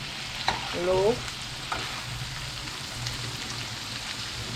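Salmon frying in hot oil and butter in a pot: a steady sizzle with scattered crackles and pops.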